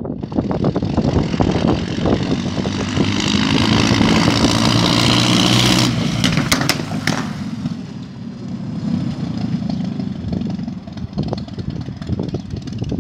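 1927 Ford Model T racer's four-cylinder overhead-valve engine driving past, loudest about four to six seconds in, then fading as the car moves away down the road. A few sharp cracks come around six to seven seconds in.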